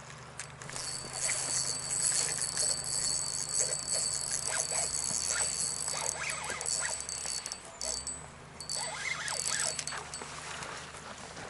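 Fishing reel being cranked to retrieve a jerkbait: a steady high whirring whine that starts about a second in, then stops and starts a few times in the last few seconds as the retrieve pauses, with light clicks and handling rustles.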